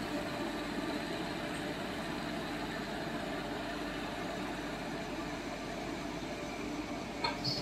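Indian Railways electric locomotive hauling loaded flat wagons slowly past, a steady hum and rumble of the locomotive and rolling wagons. A brief high squeak sounds near the end.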